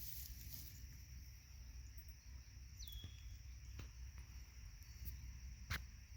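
Quiet pond-side outdoor ambience: a steady high insect drone, with a single short whistled call that drops in pitch about three seconds in, and a couple of faint clicks near the end.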